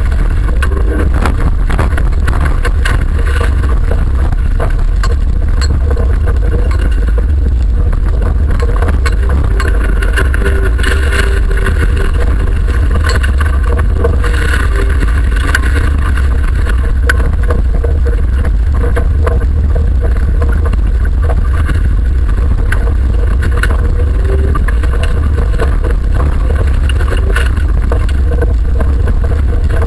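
Autocross car's engine, over 1600 cc, running hard through a race heat, heard from inside the cabin. It carries a heavy, steady low rumble, with frequent short knocks and rattles from the bodywork and the rough track.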